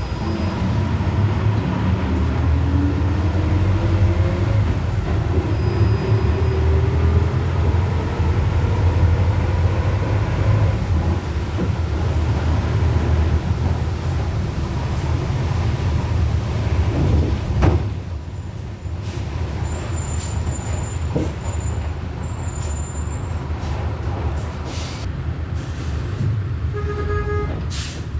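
Volksbus 17.230 OD bus's diesel engine running under load, its gearbox whining in several pitches that rise as the bus gathers speed over the first ten seconds or so. Past the middle the engine sound drops off suddenly and the bus runs on more quietly, with a few short sharp sounds near the end.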